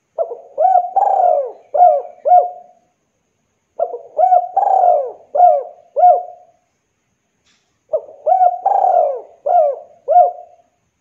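Spotted dove (Javan derkuku) cooing: three phrases of about five notes each, one starting roughly every four seconds.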